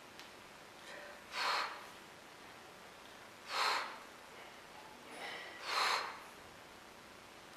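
A man breathing out hard through the nose three times, about every two seconds, with the effort of each forearm curl rep on a curl bar.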